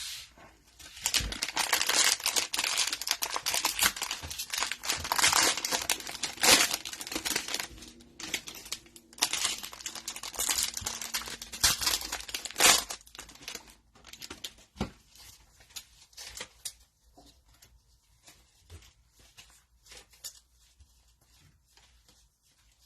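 Cellophane wrapper of a football trading-card cello pack crinkling and tearing as the pack is opened, loud and dense for about twelve seconds. After that it gives way to faint, scattered clicks and rustles of the cards being handled.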